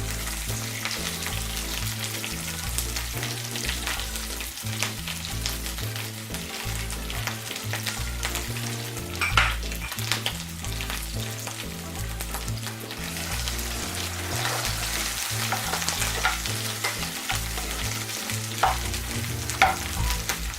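Mashed boiled potatoes frying and sizzling in hot oil in a pan while being stirred, with occasional sharp knocks of the stirring utensil against the pan. The loudest knocks come about nine seconds in and twice near the end.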